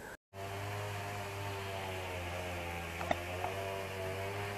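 After a brief break, an engine runs at a steady speed, a low even hum with fainter higher tones above it. There are two faint clicks about three seconds in.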